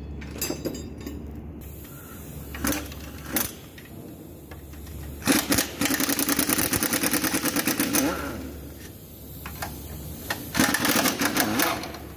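A wrench ratchets in rapid, even clicking runs while bolts come off the exhaust manifold: one run of about three seconds in the middle and a shorter one near the end, with a few single metal knocks before.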